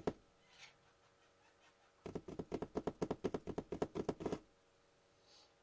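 Chicks pecking rapidly at feed: a quick, even run of sharp taps, about nine a second, lasting a couple of seconds from about two seconds in.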